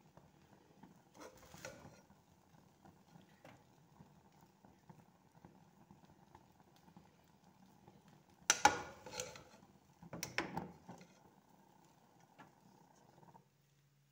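A serving spoon knocking and scraping against a plate as cooked rice is dished out: three short clusters of knocks, the loudest about eight and a half seconds in, over a faint steady hum that cuts off near the end.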